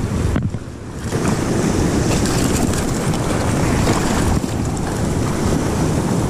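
Surf washing and churning over rocks, with wind buffeting the microphone.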